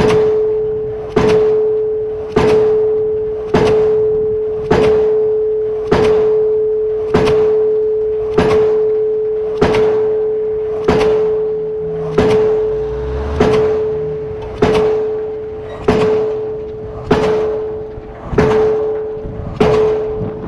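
Diesel pile hammer firing and striking a steel H-beam pile in a steady rhythm, one heavy blow about every 1.2 seconds, each dying away before the next. A steady ringing tone carries on between the blows.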